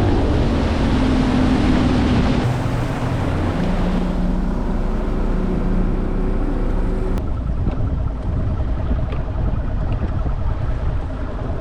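Boat motor running steadily, its pitch shifting about two seconds in and again past the middle.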